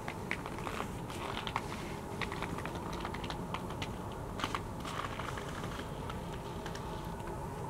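Footsteps in dry, bitterly cold snow: irregular crisp clicks and creaks as the snow squeaks underfoot, over a faint steady hum.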